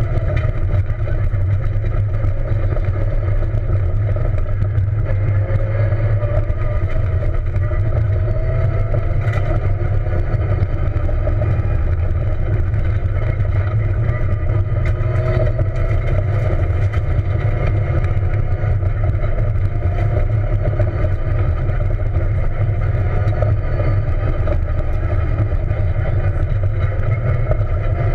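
Peugeot 207 rally car driven hard on a dirt stage, heard from inside the cabin: a loud, steady engine drone whose note rises and falls gently over a heavy rumble of tyres and suspension on the dirt road, with a few faint ticks.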